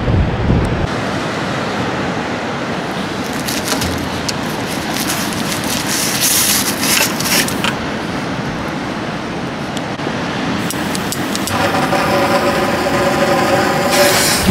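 Steady rushing outdoor noise with scattered crackles. Over the last three seconds a lit fuse hisses with a ringing tone. At the very end comes a sharp bang as the 150 mm display shell's lift charge fires it from the mortar.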